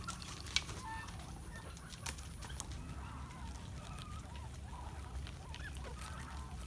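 A group of guinea pigs squeaking and chattering faintly, short wavering chirps scattered through a rowdy herd.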